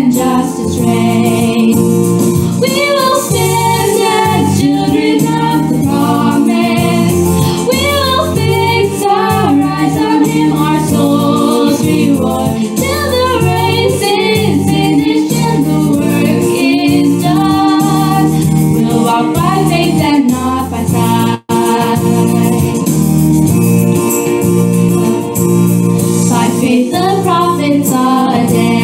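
Christian gospel song with a singing voice and choir over instrumental backing, with a very brief break about three-quarters of the way through.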